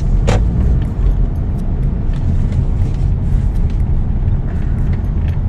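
Steady, loud low rumbling noise with a few faint clicks.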